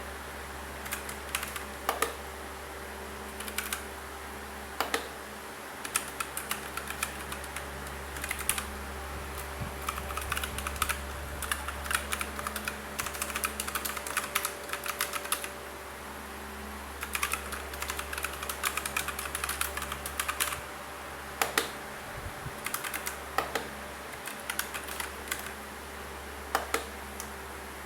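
Typing on a mechanical keyboard with brown switches and round typewriter-style keycaps: uneven runs of quick key clicks, with pauses between runs and a few louder single strokes, over a steady low electrical hum.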